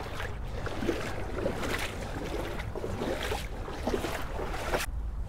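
Wading steps sloshing through shallow river water, with irregular small splashes.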